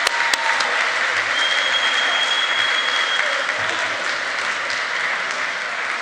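Audience applauding and cheering right after an award winner is announced, with one long high whistle held for about two seconds near the start.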